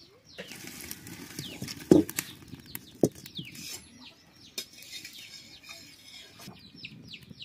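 Two sharp knocks about two and three seconds in, over a noisy rush, then a small bird chirping in quick repeated falling notes near the end.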